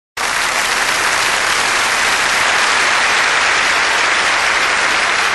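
A large audience applauding, with dense, steady clapping.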